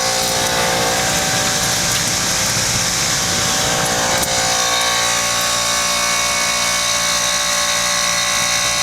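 Bard wall-mount heat pump running in cooling mode, its Copeland scroll compressor humming steadily with several steady tones. An airy rush lies over it and fades about halfway through.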